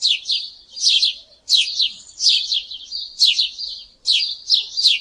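Sparrow chirping: a run of high, quick, down-sweeping chirps in about seven bursts.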